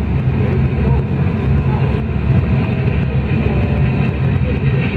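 Locomotive cab simulator playing a steady low rumble of train running sounds, with a low hum underneath.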